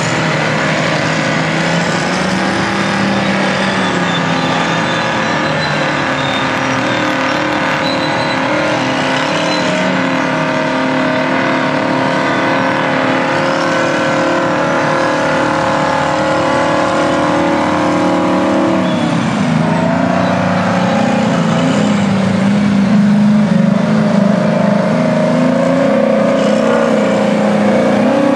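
Large diesel engine of a loaded International Harvester Pay Hauler 350B dump truck pulling across dirt, with other earthmoving machines running. The engine note holds steady, drops sharply about two-thirds of the way through, then climbs again, growing louder near the end.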